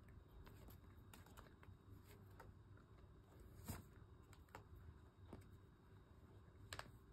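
Near silence with faint, scattered clicks and rustles of a cat rolling and pawing on carpet; one click stands out a little about halfway through and another near the end.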